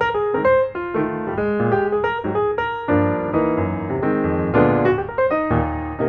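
Piano music playing, a quick run of notes over held chords.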